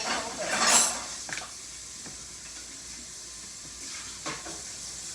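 Sticky homemade slime being mixed, giving a few short wet squelching noises. The loudest comes about a second in.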